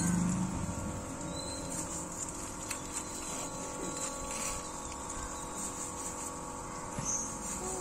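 A steady mechanical hum of several held tones under a steady high hiss. A louder low drone fades out in the first half-second.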